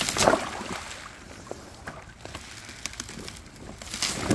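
Rubber boots wading and splashing through shallow water with thin broken ice over it, one loud slosh just after the start and another near the end, with faint ticks in between.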